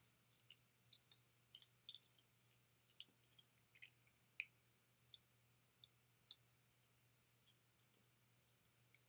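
Faint, irregular small clicks of plastic googly eyes being set down one at a time on a flatbed scanner's glass, about eighteen in all, the loudest about four and a half seconds in.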